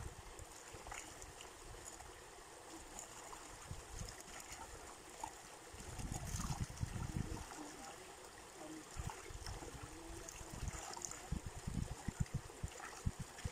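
Shallow water splashing and trickling as milkfish fingerlings are scooped by hand and bowl into a plastic bag and flick at the surface, with many small scattered splashes. Low rumbles come in about six seconds in and again near the end.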